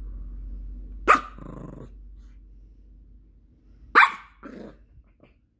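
Yorkshire terrier barking twice, sharply, about three seconds apart, each bark followed by a short low growl.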